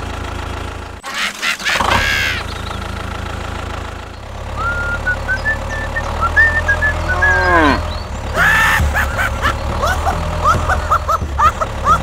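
Tractor engine running steadily, with a brief break about a second in, together with cattle mooing. A run of short high chirps comes in over the engine in the last few seconds.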